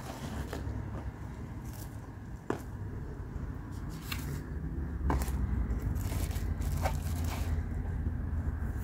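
Painting supplies handled on a wooden tabletop: a few short taps and clicks with brief scraping and rustling as a sponge and a card palette are picked up and moved, over a steady low rumble.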